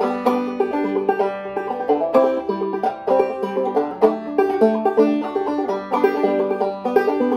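Five-string banjo tuned to open G (gDGBD) played clawhammer style. It picks a quick G–C–D chord riff in a steady bum-ditty rhythm, with drop-thumb notes added where the thumb drops to the inner strings.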